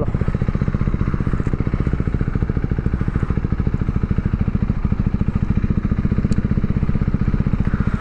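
KTM motorcycle's single-cylinder engine idling steadily, its firing pulses even and regular.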